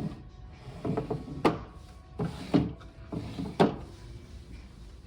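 Wooden drawers of a vintage chest of drawers being slid and pushed shut, three times, each a short sliding rumble ending in a sharp knock.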